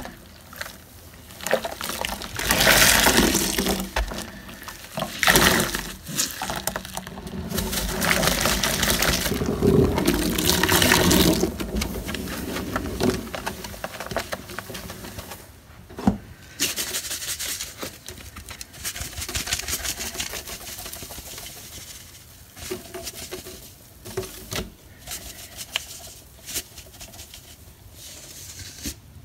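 A wet sponge being squeezed and scrubbed in a soapy stainless-steel sink: squelching and sloshing of suds and water. After about twelve seconds it gives way to quieter wiping and rubbing around the drain.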